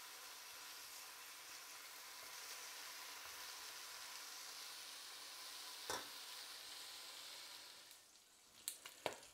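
Smoked bacon slices sizzling faintly as they fry in a stainless steel pot, with one sharp metal clink about six seconds in as the tongs touch the pot. Near the end the sizzle drops away, leaving a few light clicks.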